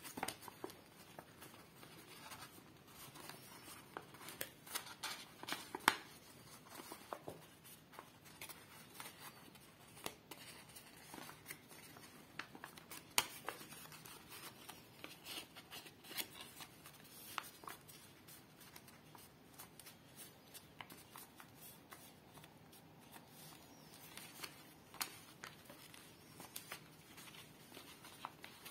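A sheet of printer paper being handled and folded by hand: irregular soft rustling with crisp crackles and ticks as the creases are pressed down.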